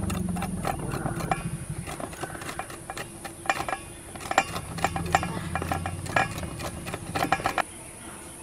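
Gondhoraj lemon (kaffir lime) rind being rubbed back and forth on a hand grater: a quick, irregular run of rasping scrapes that stops about seven and a half seconds in.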